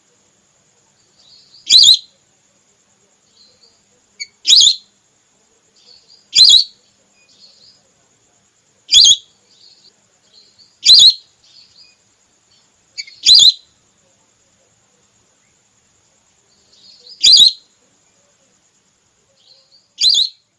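Whistling duck calls from a hunting lure recording said to be the female's call: short, high, whistled notes repeated every two to four seconds, eight loud ones with softer chirps between them.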